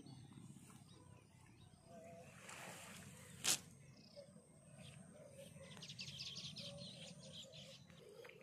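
Quiet rural ambience with birds chirping in quick high runs, a single sharp click a little after three seconds in, and the soft rustle of a nylon cast net and its rope being gathered by hand.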